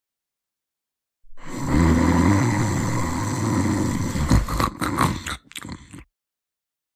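Loud snoring that cuts in about a second in, with a low, drawn-out snore. It breaks up near the end into a few short wet smacks before cutting off abruptly.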